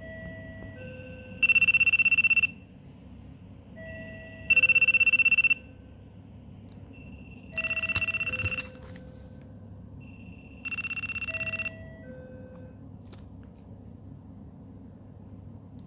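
A PHS nurse-call handset rings with its alert: a short two-note chime, then about a second of loud, buzzing tone. The pattern repeats four times about three seconds apart, and the last two are quieter. It signals a call from a resident or a bed or mat sensor.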